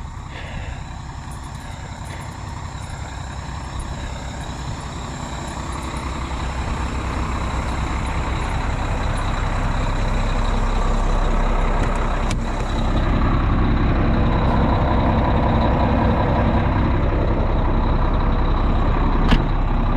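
A semi truck's diesel engine idling steadily, growing gradually louder, with a couple of sharp clicks, the strongest near the end.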